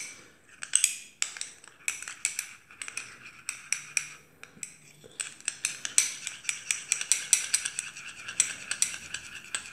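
A metal teaspoon stirring in a small ceramic cup, clinking rapidly and repeatedly against its sides as yeast is dissolved in water. The clinks come faster in the second half.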